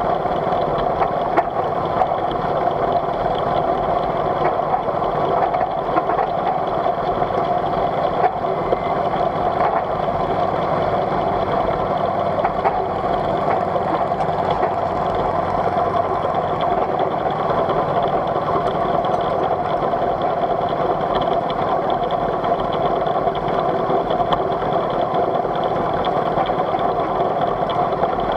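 Polly V miniature live steam locomotive running steadily along the track: a constant mechanical running noise that does not rise or fall.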